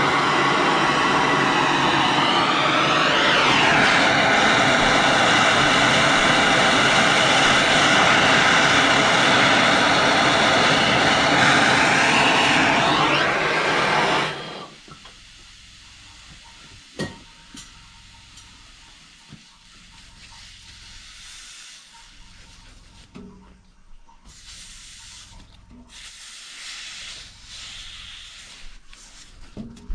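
Hand torch on a yellow MAP-gas cylinder burning steadily as it heats a soldered copper pipe joint, a loud hiss with a whine in the flame that sweeps up and back down about three seconds in and again near twelve seconds. The torch shuts off suddenly about 14 seconds in, leaving a click and a rag rubbing over the hot joint near the end.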